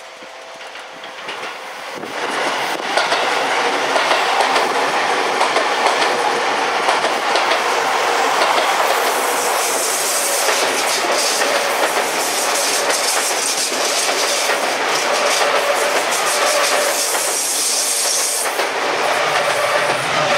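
Seibu 6000 series electric commuter train running in and passing close by, growing louder over the first few seconds, its wheels clattering over the rail joints. A second electric train passes on the near track through the second half.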